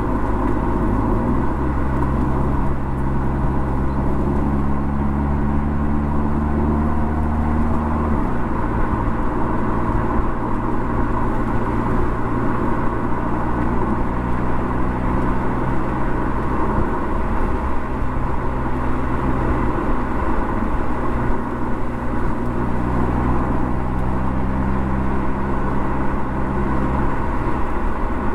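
Mercedes CLA45 AMG driving along a road, with a steady engine hum under road and tyre noise. The engine's tone changes abruptly a few times.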